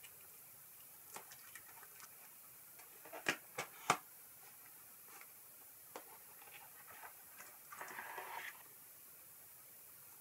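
Unboxing handling noise from a cardboard box and a plastic filter case: scattered soft clicks and taps, three sharper clicks about three to four seconds in, and a short rustle of plastic about eight seconds in.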